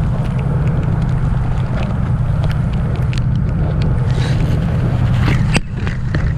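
Party fishing boat's engine droning steadily, with wind on the microphone and scattered clicks from the rod and reel being handled; a sharp knock comes about five and a half seconds in.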